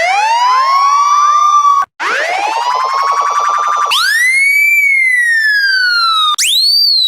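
A run of different police siren sound effects, each cut off abruptly: two wail sweeps that rise in pitch over about two seconds each, the second with a rough, buzzy edge, then a cleaner, higher siren tone that rises quickly and falls slowly, and a shorter, higher sweep near the end.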